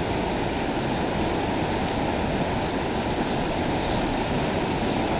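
River current rushing past shoreline rocks: a steady, even rush of water.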